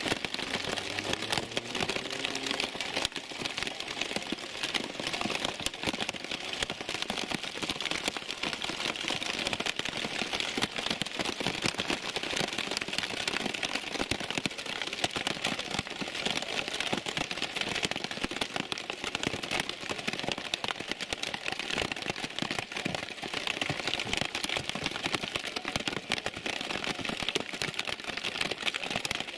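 Heavy downpour pelting down: a dense, steady crackle of drops striking hard surfaces close by.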